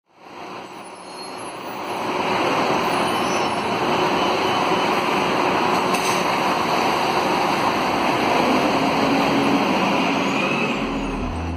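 Scania K280UB city bus with its DC09 diesel engine pulling away from a stop, its engine and tyres mixed with street traffic noise. The sound fades in over the first two seconds and then runs steadily. A low music bass comes in just before the end.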